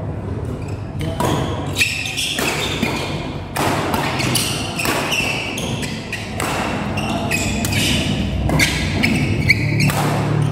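Badminton doubles rally: repeated sharp racket strikes on the shuttlecock and players' footwork on the court.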